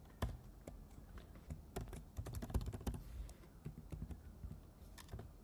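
Typing on a computer keyboard: keys clicking in quick runs with short pauses between them, as a command is typed in.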